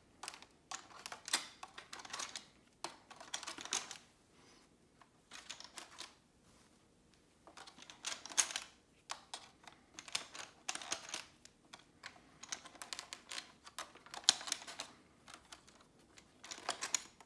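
Yellow foam Rival balls being pushed one by one into the top loading port of a Nerf Rival Takedown blaster: short bursts of hard plastic clicking and rattling, repeated about every second or two.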